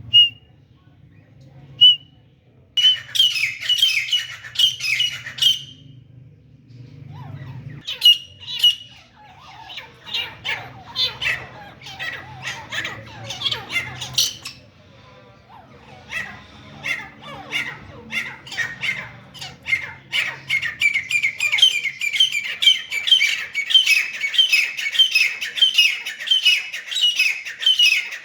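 Grey francolin calling: harsh, squawking notes in short runs that build into a fast, continuous series of repeated calls, several a second, in the last third.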